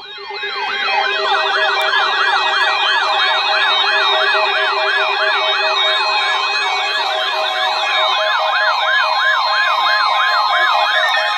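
Several electronic sirens sounding together in a fast rising-and-falling yelp, about three sweeps a second, over steady held tones. The sound swells in over the first second and then holds steady and loud.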